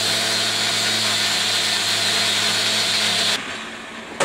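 A power tool running steadily at full speed with a hissing high-pitched whine over a low hum, switched off abruptly about three and a half seconds in, followed by a single sharp knock near the end.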